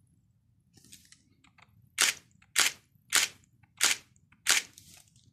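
Nikon D7000 DSLR's shutter and mirror firing five times in a row, about 0.6 s apart, on freshly replaced shutter curtains: the shutter is working again. A few faint small clicks of the camera's controls come about a second in.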